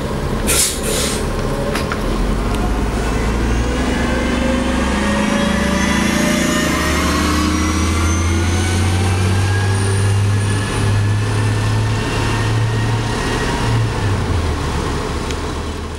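CNG-powered New Flyer low-floor transit bus pulling away from a stop. A brief hiss of air at the start, then the engine note climbs steadily as it accelerates, with a dip about eleven seconds in.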